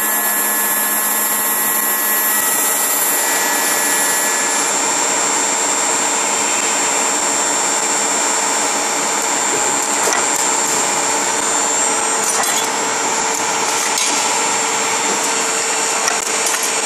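Automatic CNC key-cutting machine running, its two cutter spindles milling key blanks: a loud, steady high whine mixed with cutting noise, with a few sharp clicks in the second half.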